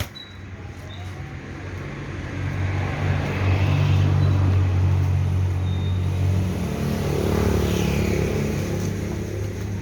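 A motor vehicle's engine and tyres swell in loudness over a few seconds and then ease off, as a vehicle goes by. A single sharp click comes right at the start.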